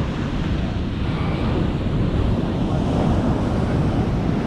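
Ocean surf breaking steadily on a beach, with wind buffeting the microphone.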